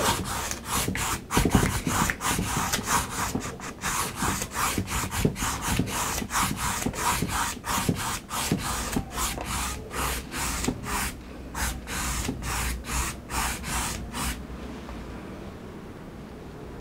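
A wide flat paintbrush scrubbing wet acrylic paint across a stretched canvas in quick back-and-forth strokes, about three a second, blending the blue sky. The strokes stop about fourteen seconds in.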